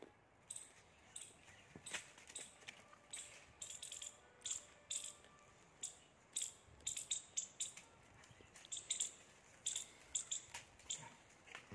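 A squirrel giving rapid, high-pitched chirping alarm calls. The short chips come in quick, irregular runs.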